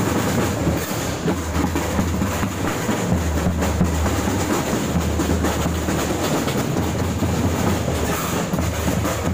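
School marching drum band playing on the march: snare drums and bass drums beating a dense, continuous cadence of rapid hits, heard from among the players, over a steady low rumble.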